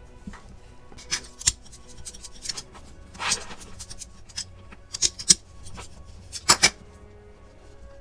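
Plastic Play-Doh cutter and tools clicking and tapping on a hard surface: a handful of short sharp knocks spread out, the loudest pair about six and a half seconds in, over soft background music.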